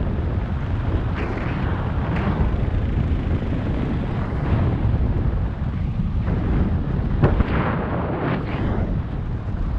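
Wind buffeting the microphone of a head-mounted camera during a parachute canopy descent: a steady low rumble with a few brief gusts flaring up.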